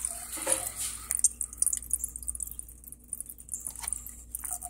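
Coolant gurgling and squirting in a BMW's expansion tank as the electric water pump runs its bleed cycle, pushing air bubbles out of the cooling system. Irregular wet spluttering, with a faint steady hum underneath.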